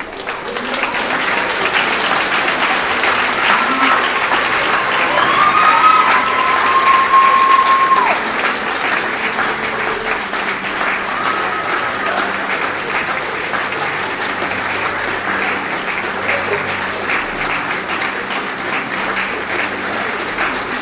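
A hall full of people clapping, a crowd's applause that swells in the first seconds, is loudest about six to eight seconds in and then carries on steadily. A few drawn-out cheers ring over it near the middle.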